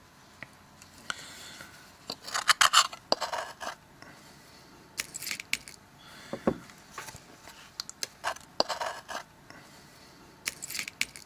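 A flat blade scraping old adhesive off a Samsung Galaxy S3's metal screen frame, in four short bursts of scraping and light metallic clicking, with one dull knock about halfway through.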